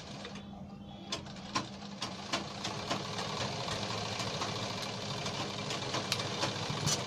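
Large tailor's scissors cutting through doubled buckram along a curved line: a series of sharp snips, sparse at first and busier in the second half. A steady low hum runs underneath.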